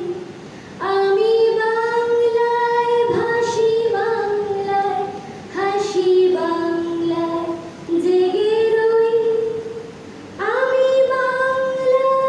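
A woman singing solo and unaccompanied into a microphone, in long held notes, with brief breaks between phrases about four times.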